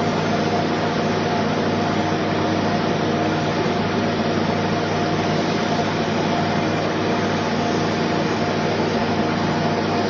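Electric wood lathe running steadily, its motor hum under a constant even noise.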